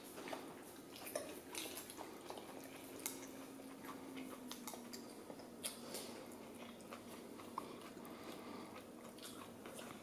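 Faint eating sounds: scattered light clicks of a spoon and fork against a cup, tray and bowl, with chewing.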